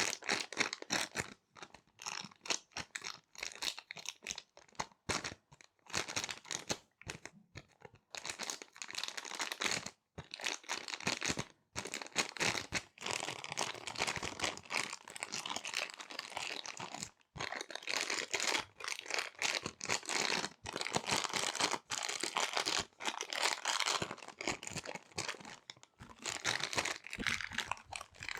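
Small resealable plastic bags being crinkled and handled close to the microphone, in irregular bursts of rustling with short pauses between them.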